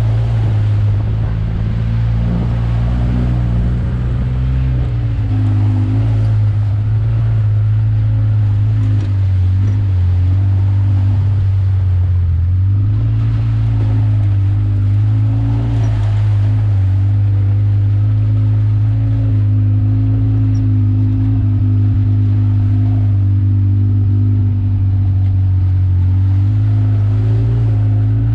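ATV engine running steadily under way, its note rising and falling a little with the throttle. Near the start the tyres splash through a muddy puddle.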